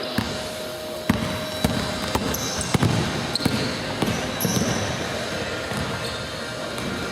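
A basketball being dribbled on a court: a run of sharp bounces about every half second, with a few short high squeaks over general game noise.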